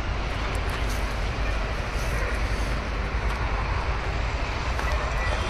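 Steady low rumble with a broad hiss of outdoor background noise, with no distinct events.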